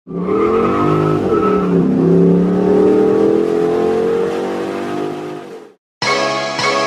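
Car engine revving: its pitch dips, then climbs slowly and holds before cutting off suddenly just before the end.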